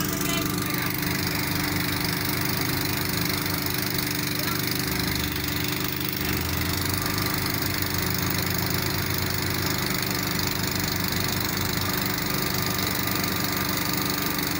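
An engine running steadily without change in speed.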